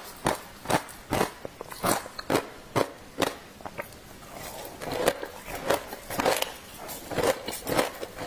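Frozen matcha ice crunching as a chunk is broken off the block and bitten and chewed: sharp crunches about two a second, easing off around four seconds in and then starting again.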